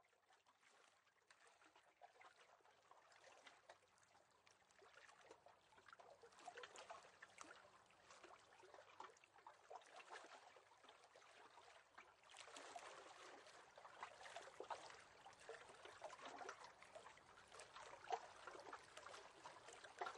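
Faint water trickling and lapping, fading in from silence and slowly growing louder, with many small splashy ticks.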